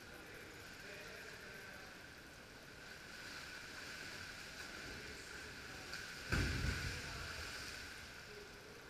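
Kayak paddle strokes splashing the pool water as a kayak passes close, with a steady hiss of the pool hall underneath. The splashing grows from about three seconds in, and a single loud thump comes just after six seconds, then fades.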